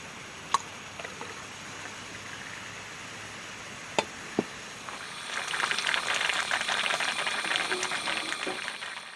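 Liquid bubbling and fizzing: a soft steady hiss with a few sharp ticks, growing into a louder, dense crackling fizz about five seconds in.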